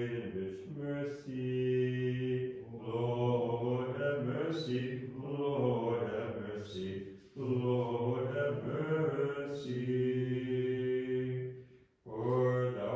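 Orthodox liturgical chant in a low male voice, sung on long, steady reciting notes with small rises and falls. The phrases break for a breath about seven seconds in and again near the end.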